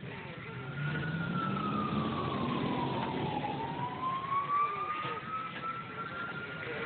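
Fire engine siren wailing slowly: one long fall in pitch and back up again, with a fainter low rising drone beneath it during the first half.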